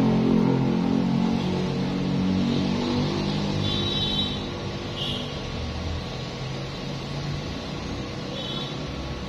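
Low engine hum of a motor vehicle, loudest at first and fading over the first few seconds. A few short high chirps come through about four and five seconds in and again near the end.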